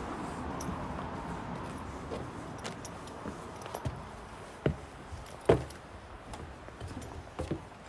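Scattered metallic clicks and clinks over a steady low hum that slowly fades, with a sharper knock about five and a half seconds in and a couple more near the end.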